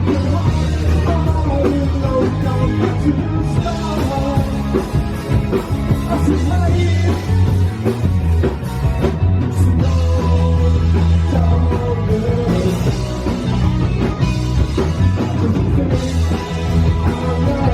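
Live rock band playing loud, with electric guitars, heavy bass and drums, and a singing voice over the top, as heard from the audience.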